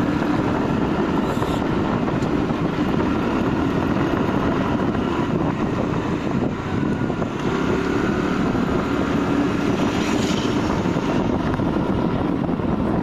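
Steady running noise of a moving vehicle: an even engine hum mixed with rushing road and wind noise, holding at one level throughout.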